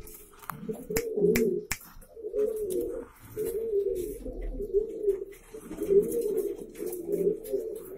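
Valenciano antiguo pigeons cooing over and over in rolling, wavering calls, with three sharp clicks about a second in.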